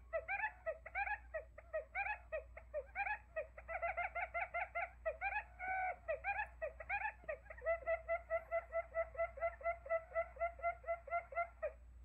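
Quail calls played as a trapping decoy: a fast run of short, pitched chirps, settling in the second half into an even series of about six a second, then stopping just before the end.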